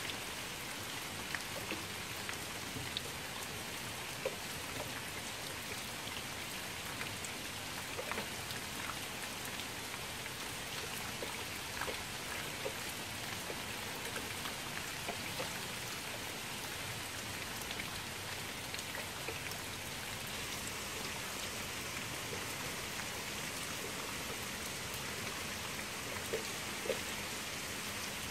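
Rain falling steadily onto a shallow pool of water: an even hiss of rain, with many single drops striking the surface now and then.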